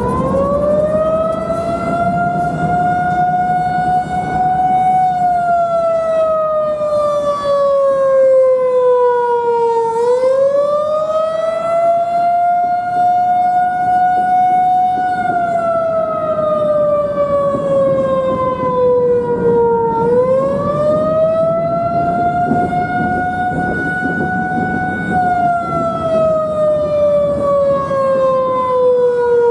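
Federal Signal 2001-130 rotating electromechanical outdoor warning siren sounding the attack signal during a test: a loud wail that climbs for about five seconds, then sinks for about five seconds, three times over.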